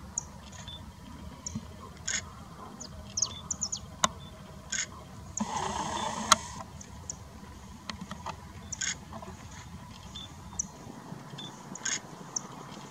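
Small birds chirping in short, high, scattered calls over faint outdoor background noise, with a brief rush of noise about five and a half seconds in and a few sharp clicks.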